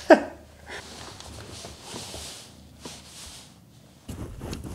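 A short laugh, then soft rustling and shuffling of a person moving about and getting down onto the floor, with a faint click in the middle and a louder scuffle near the end.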